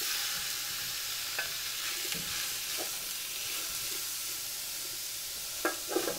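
Cubed beef frying in hot oil in a large pot, a steady sizzle. A wooden spoon stirs and knocks through the meat, busier and louder near the end.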